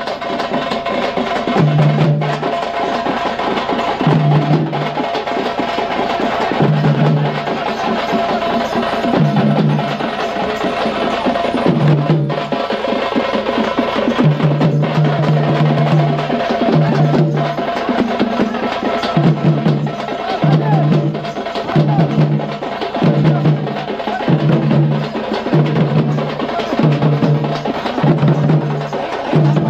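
Veeragase folk-dance band playing: drums beating a repeating stroke pattern with cymbal and wood-like clatter over a steady held tone. The strokes come faster past the middle.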